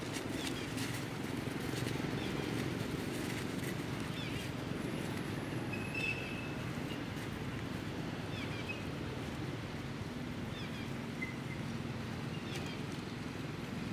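Steady low outdoor rumble, with faint short high chirps and squeaks scattered through and one brief high held note about six seconds in.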